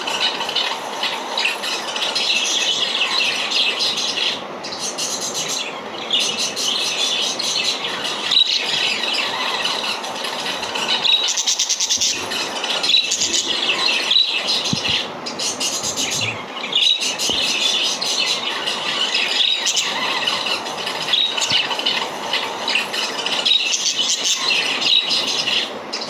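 Parrots squealing and chattering nonstop, many short high calls overlapping.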